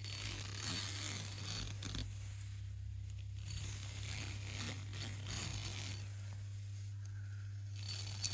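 A surface being scraped and rubbed by hand in slow bouts, with pauses between strokes, over a steady low electrical hum.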